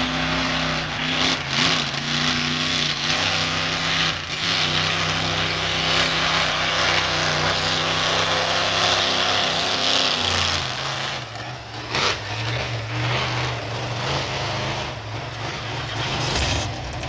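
Monster truck engine running and revving, its pitch shifting about ten seconds in, with a sharp bang about twelve seconds in.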